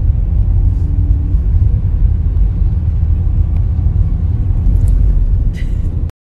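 Heavy, steady low rumble of a moving car heard from inside its cabin, cutting off abruptly near the end.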